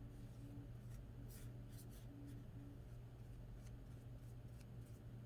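Faint scratching and rubbing in a few short strokes as a resin-printed gear is worked on and cleaned on a magnetic build plate. A steady low hum runs underneath.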